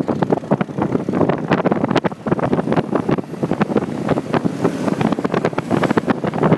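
Loud, gusty wind buffeting the microphone of a moving motorcycle, with the motorcycle's running mixed in underneath.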